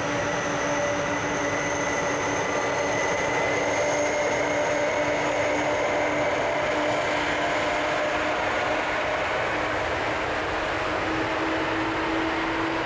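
Boeing 747-400's four jet engines running at taxi power as the jumbo rolls onto the runway: a steady rumble with a whine, its pitch rising slightly near the end.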